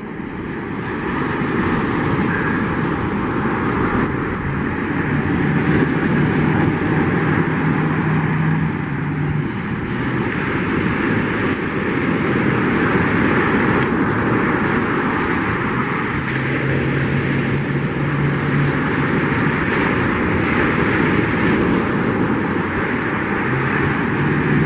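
Steady rushing noise of surf and wind, with the low hum of a ski boat's outboard motors coming through three times.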